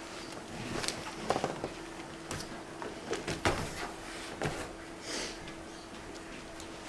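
Irregular knocks and clicks of objects being handled, a few sharper thumps among them, over a faint steady hum.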